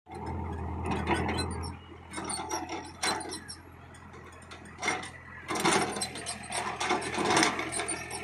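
Hyundai hydraulic excavator at work: a steady low engine hum under irregular metallic clanks and rattles. It is loudest for the first second and a half and again in the second half.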